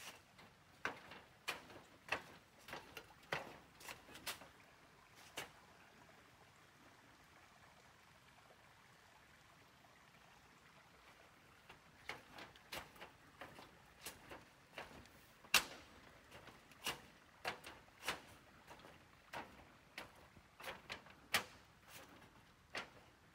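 A hiker's footsteps at a walking pace, a sharp step about every half second, stopping for several seconds midway and then starting again.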